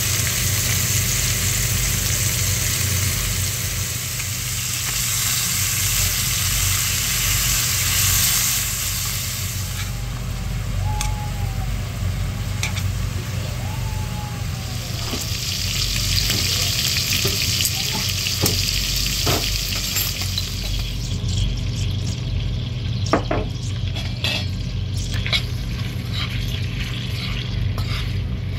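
Pork rib pieces sizzling as they sear in a stainless steel pan. Tongs and then a spatula click and scrape against the pan as the pieces are turned, more often in the second half. A steady low hum runs underneath.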